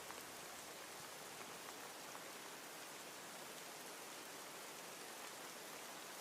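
Steady rain: a soft, even hiss with faint scattered drop ticks.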